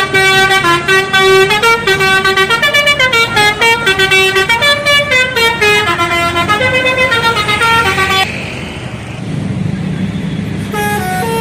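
Indonesian bus 'telolet' musical horn playing a quick tune of stepping notes, which stops abruptly about eight seconds in. A low rumble follows, and another telolet tune starts near the end.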